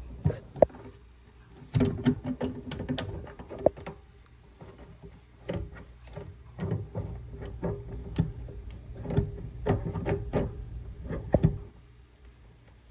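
Tongue-and-groove pliers gripping and turning the brass nut over a Pfister faucet cartridge, snugging it down: irregular clicks and short metal-on-metal scrapes, in bursts.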